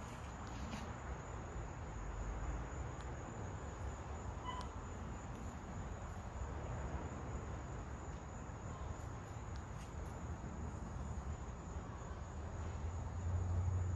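Outdoor insect chorus: a steady, high-pitched trill that does not change, over a low rumble on the microphone. A single short pitched note sounds about four and a half seconds in.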